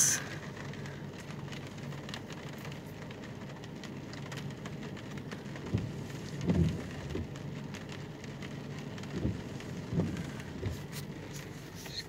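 Steady rain pattering on a vehicle's roof and windshield, heard from inside the car as many small drop ticks. A few brief low rumbles come through in the second half.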